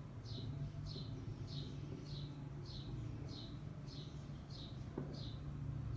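A short high chirp repeating steadily, about three every two seconds, each one dropping a little in pitch, over a low steady hum. A single sharp tap comes about five seconds in.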